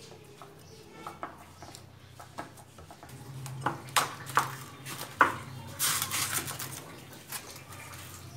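Handling noise: light clicks of hands working greased dough against a glass bowl, then plastic cling film crackling as it is pulled off its roll and stretched over the bowl, with a few sharp clicks near the middle and a burst of crinkling about six seconds in. A steady low hum runs underneath.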